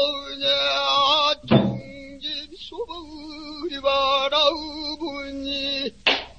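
Pansori singing: a solo voice holding long, wavering notes with wide vibrato and sliding pitch. A sharp drum stroke, typical of the buk barrel drum that accompanies pansori, comes about one and a half seconds in, and another near the end.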